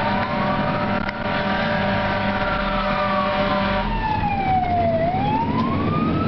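Fire engine siren wailing in slow rising and falling sweeps, heard from inside the cab, with the truck's engine running underneath. A steady blaring tone sounds over the siren and stops about four seconds in.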